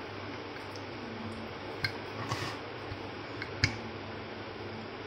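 Wooden rolling pin rolling out dough on a round board, with a few sharp clicks and knocks, the loudest about three and a half seconds in, over a steady background hum.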